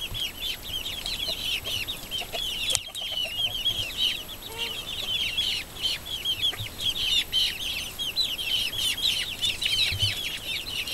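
A group of young chicks peeping constantly: many short, high, falling peeps, several a second and overlapping.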